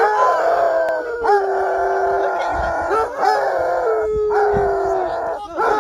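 A dog howling: a string of long drawn-out howls, about four, one after another with short breaks between them.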